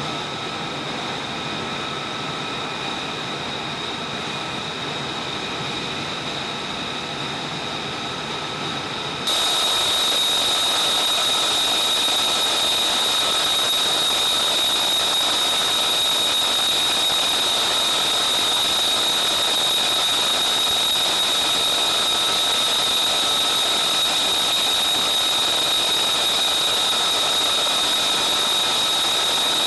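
F-35B's F135 turbofan idling during a hot reload: a steady high whine with a strong piercing tone over a hiss. It jumps suddenly louder and brighter about nine seconds in.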